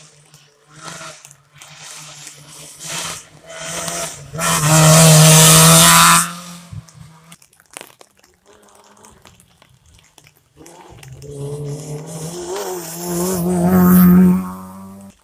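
Rally cars racing past on a wet tarmac stage, engines revving hard. There are two loud passes, one about four seconds in and one near the end, the second with the revs rising and falling and cutting off abruptly. Tyres hiss on the wet road.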